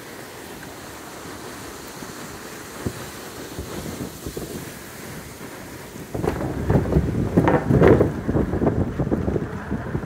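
Wind rushing over the microphone of a moving electric unicycle rider, turning into loud, irregular buffeting about six seconds in.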